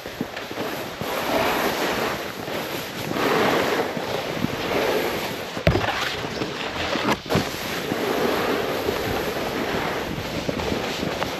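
Snowboard riding over slushy snow: a steady scraping hiss that swells and fades as the board slides and turns, with wind on the microphone and two sharp knocks about halfway through.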